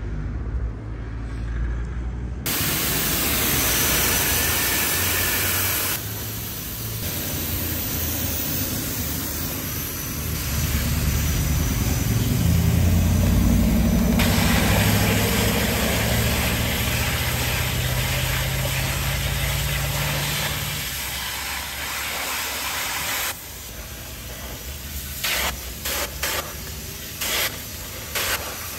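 Steady hissing spray from a powered cleaning tool with a motor running underneath, starting about two seconds in and shifting in strength several times. Near the end it cuts on and off in a series of short bursts.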